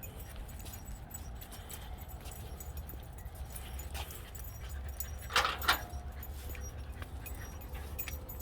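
A dog gives two quick, short whimpers about five seconds in, over a low steady background rumble.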